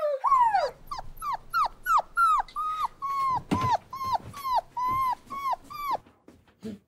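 A dog whining in a quick run of short, high, falling whines, about three a second, stopping about six seconds in.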